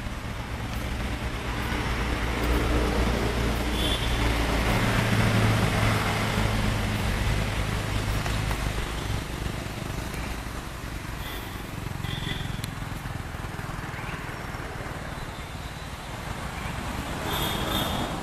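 Road traffic: a motor vehicle's engine running close by, swelling to its loudest about five seconds in and fading after about nine seconds. A few short high-pitched beeps sound along the way.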